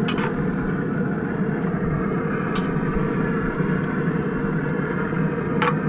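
Steady low hum of a Pit Boss pellet grill's fan running, with a few light clicks of a spatula scraping a cast iron skillet as chili is stirred.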